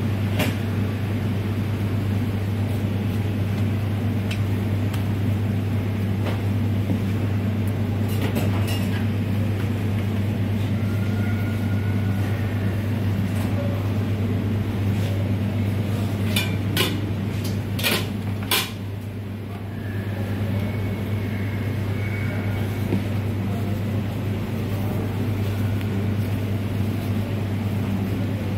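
Steady low machine hum from kitchen equipment. A few sharp clicks and knocks come in quick succession about two-thirds of the way through.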